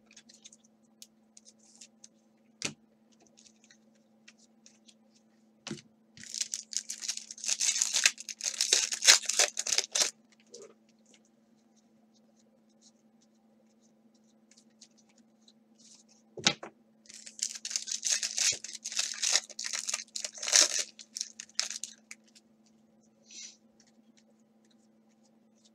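Plastic trading-card pack wrappers being torn open, twice: each is a few seconds of crinkly tearing, the first about six seconds in and the second about sixteen seconds in. A few sharp single clicks come between them, over a faint steady hum.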